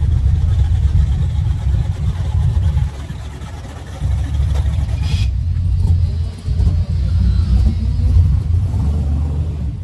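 Drag cars' engines idling in a deep, continuous rumble that drops off for about a second around three seconds in, then comes back.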